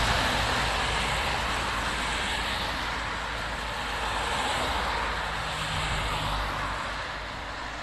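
Cars and a van driving past on a wet road: tyre hiss on the wet asphalt over a low engine hum, swelling as each vehicle goes by.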